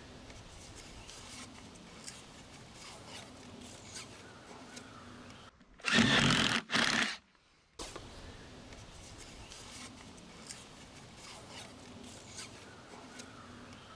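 Makita cordless drill run in two short bursts against the wooden frame, loud and noisy, near the middle; faint handling clicks and rustling around it.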